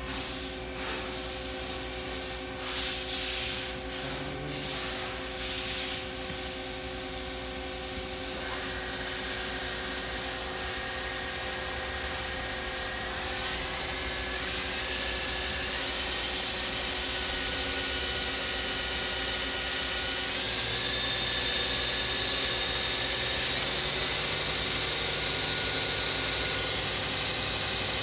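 1995 Mazak Quick Turn 10 CNC lathe running: a steady hiss under several whines that step up in pitch four or five times, growing gradually louder as the spindle speed is raised. A few knocks in the first six seconds.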